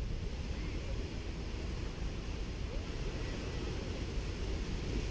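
Sea waves washing on a sandy beach, heard as a steady low rumbling wash with wind buffeting the microphone.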